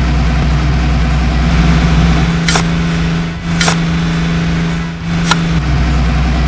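Wheel loader engine running steadily at a low, even pitch, with three sharp clicks about a second apart partway through.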